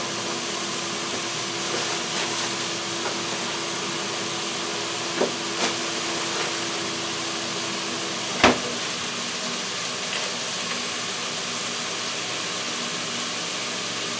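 Frozen baby carrots and sweet red pepper pieces sizzling steadily in butter in a skillet, with a faint steady hum underneath. A few short knocks come around five to six seconds in, and a louder one about eight and a half seconds in.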